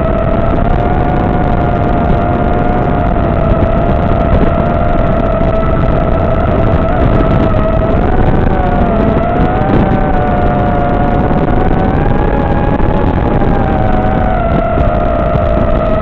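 Electric motors and propellers of an FPV drone whining steadily over a rushing hiss, the pitch wavering up and down slightly in the middle as the throttle shifts.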